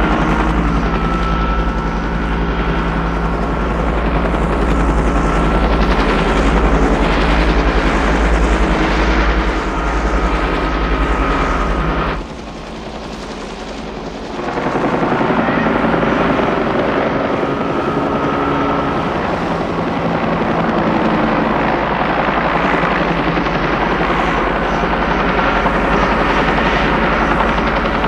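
Helicopter running steadily with a fast, low beat from the rotor. About twelve seconds in it drops away for two seconds, then comes back just as strong.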